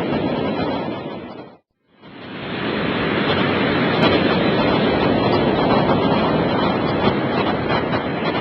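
Surf from large typhoon swell breaking at a river mouth, a steady dense rushing. The sound fades out about a second and a half in, is silent for a moment, then fades back in.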